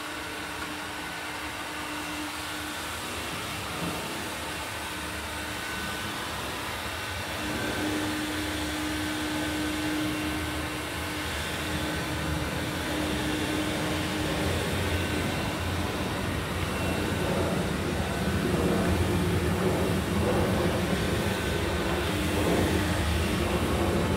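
A heating tool blowing steadily, with a faint whine, as heat is put into the suspension arm to loosen a worn rubber bushing for extraction; it grows louder and fuller about a third of the way in and again later.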